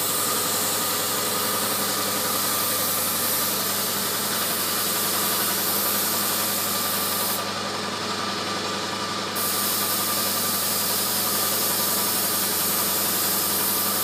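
Paint spray rig at work: a steady motor hum from the air supply under the hiss of a hose-fed spray gun. The hiss stops for about two seconds midway through, then resumes.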